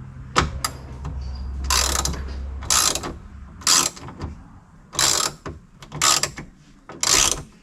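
Hand ratchet clicking in repeated short strokes, about one a second, as it backs out a fastener on a window regulator assembly inside the door.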